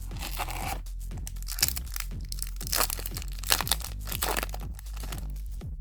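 A Yu-Gi-Oh booster pack's foil wrapper being torn open and crinkled in the hands, in a run of irregular crackles, over quiet background music.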